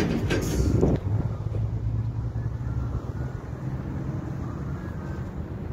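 Car driving on a road, heard from inside: a steady low rumble of engine and tyres. It is louder for the first second, then settles.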